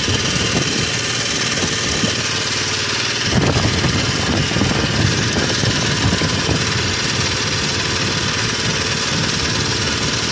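Small engine on a fishing boat running steadily, a little louder with more low rumble from about three seconds in.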